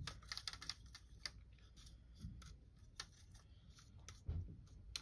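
Faint, irregular light clicks and taps from handling painting materials, a cluster in the first second and single ones later, with a few soft low thumps.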